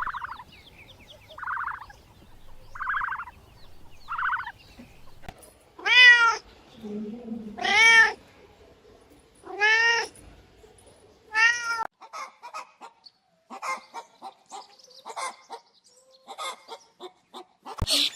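Domestic cat meowing four times, each meow a drawn-out rising-and-falling call, about two seconds apart. It comes after four shorter, higher calls, and is followed by short scattered clicks and chirps.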